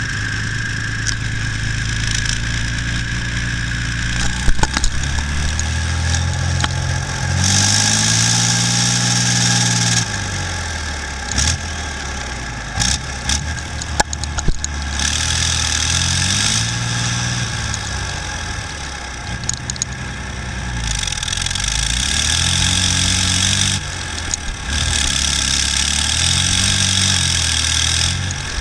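BVP (BMP-1) tracked infantry fighting vehicle's UTD-20 V6 diesel engine running and revving up and down again and again as it drives, heard from on top of the hull. Stretches of loud hiss come and go, with scattered sharp knocks.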